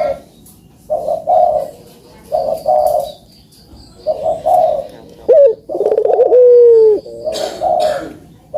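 Puter doves (Barbary doves) cooing repeatedly in short rolling coos, with a louder, long drawn-out coo about six seconds in that falls in pitch at its end.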